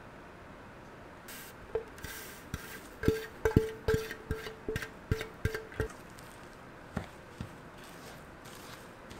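Sharp taps against glass mixing bowls, each one making the glass ring briefly, about three a second, as meringue is knocked out into a bowl of macaron dry mix. Two more taps come near the end, with soft stirring.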